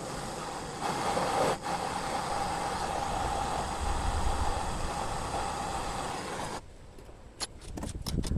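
A steady hiss of escaping gas starts suddenly and cuts off sharply after about six and a half seconds, followed by a few light clicks.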